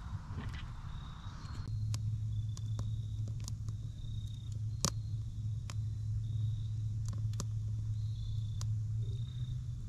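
Newly lit campfire crackling, with scattered sharp pops as the kindling catches. Underneath is a steady low hum that sets in about two seconds in, along with repeated short high chirps.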